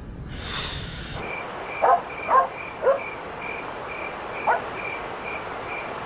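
Night ambience: a cricket chirping in a steady rhythm, about two chirps a second, with five short, loud animal calls that fall in pitch, three of them close together early on. A brief rush of noise lasting about a second comes just before the chirping starts.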